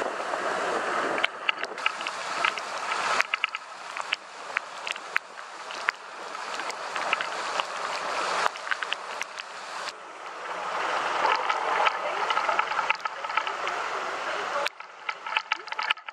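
Motorbike tyres splashing through rain-flooded road water, with a steady rushing spray noise and many sharp ticks of raindrops striking the camera. The rushing drops off sharply near the end.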